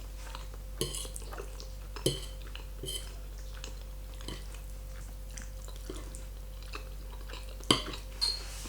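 A fork clinking and scraping against a plate of pasta several times, the loudest clink near the end, with a steady low electrical hum underneath.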